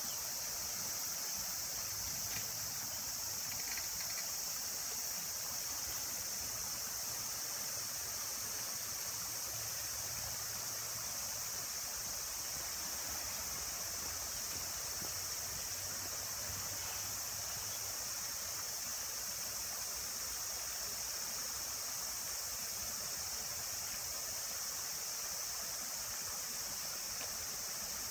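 Shallow stream rippling over stones, with a steady, high-pitched chorus of insects over it.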